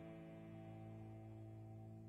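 Faint background music: a held chord ringing on as the music dies away.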